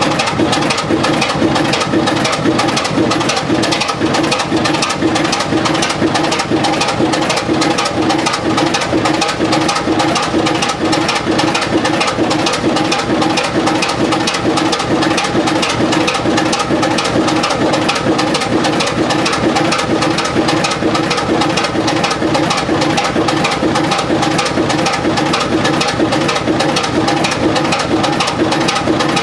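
Allen 6S37 six-cylinder diesel engine, rated 500 bhp at 375 rpm, running steadily with a fast, even clatter of firing strokes. Its fuel pumps are not yet evenly set, and No. 6 cylinder knocks, which the owner says needs shims.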